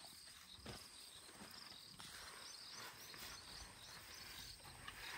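Quiet outdoor ambience with a faint, high chirp repeating about four times a second.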